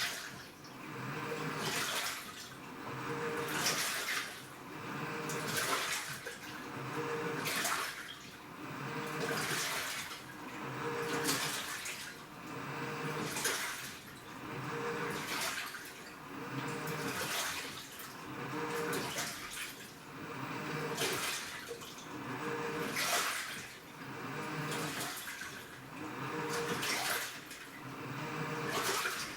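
Washing machine mid-wash, water sloshing as the drum or agitator turns back and forth, in swishing surges about every two seconds.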